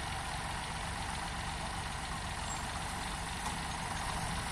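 Combine harvester diesel engines running steadily.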